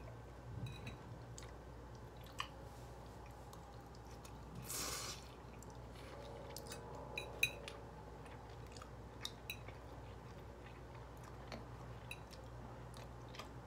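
Faint chewing and mouth sounds of a person eating fettuccine alfredo, with scattered light clicks of a metal fork against the plate and a brief hiss about five seconds in.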